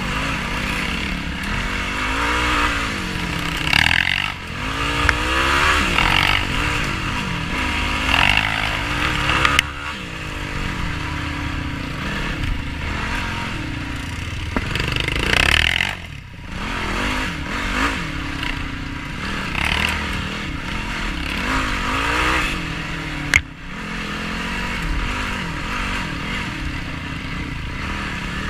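Yamaha YFZ450R quad's single-cylinder four-stroke engine revving up and down repeatedly while riding offroad. There is a single sharp click about three quarters of the way through.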